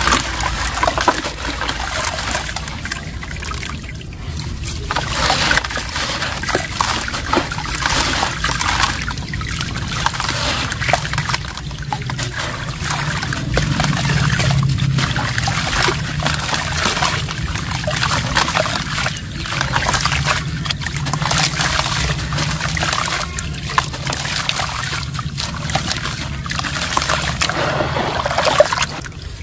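Soft, dusty reused pure cement crumbling in the hand and showering into a tub of water: a continuous patter and trickle of falling grains and powder hitting the water, with small splashes and crunches as pieces break off.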